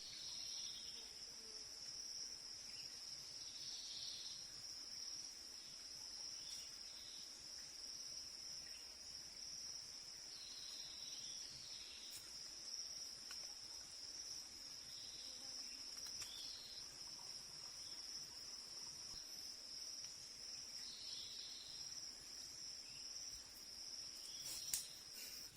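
Faint steady, high-pitched drone of insects, with scattered brief chirps and a sharp click near the end.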